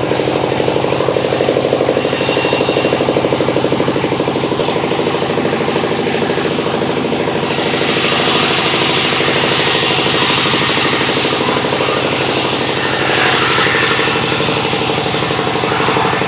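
Sawmill saw running steadily, a constant mechanical drone with the rasping noise of the blade cutting sengon wood, which grows louder from about eight seconds in.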